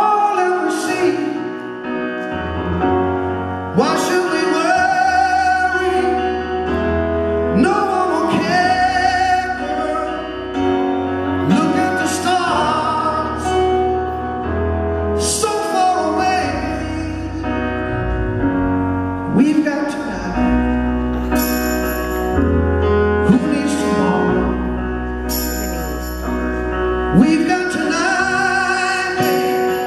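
A man singing a slow rock ballad live into a microphone, backed by a band playing held chords over a steady bass line.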